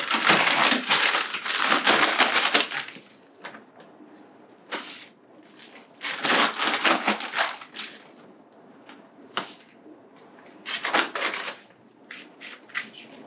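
Potting soil being scooped out of its plastic bag and poured from a hand scoop into a plant pot: three bursts of crinkling, rustling noise, with a few light clicks near the end as the soil is pressed down around the stem.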